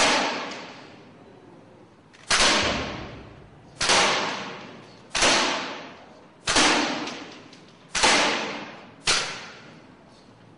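Air gun fired seven times in quick succession, about one to one and a half seconds apart, each sharp shot dying away in a short echo.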